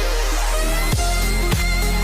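Background electronic music with a heavy bass and a steady kick beat, a bit under two beats a second.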